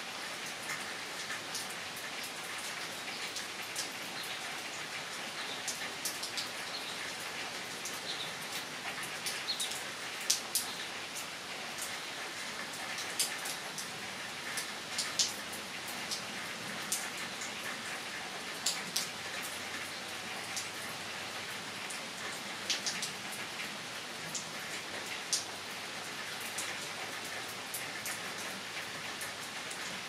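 Steady rain, an even hiss with many separate drops ticking close by, a few of them louder than the rest.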